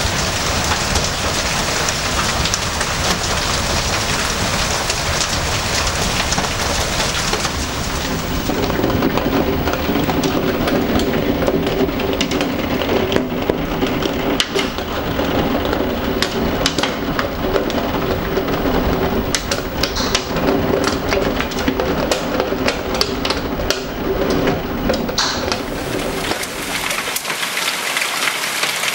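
Heavy rain mixed with small hail falling on a patio and a roof, a dense steady hiss. Through the middle stretch, sharp ticks of close drops and hailstones strike over a low steady hum.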